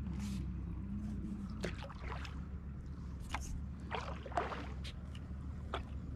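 A paddle dipping into calm lake water, with irregular splashes and drips over a steady low hum.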